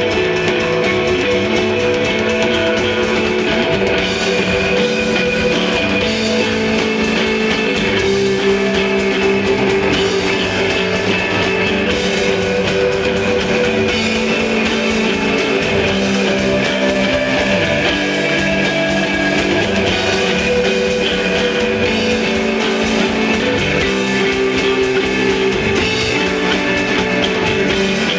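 Live instrumental desert rock band playing: electric guitar with sustained, ringing notes over bass and a drum kit.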